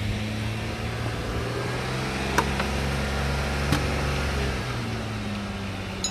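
Holden VP Commodore engine idling steadily after a repair to a faulty alternator connection, sounding healthier. Its pitch lifts slightly near the start and eases back near the end, and two sharp clicks come in the middle.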